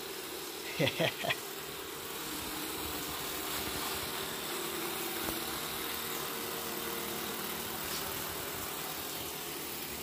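Robot vacuum cleaner running with a steady buzzing whir. A brief voice-like sound about a second in.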